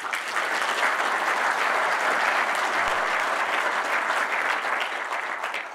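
A large seated audience applauding: dense, steady clapping that fades out near the end.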